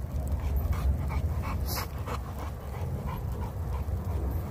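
A young Renascence Bulldogge panting, a run of quick breaths about four a second in the first half, over a steady low rumble.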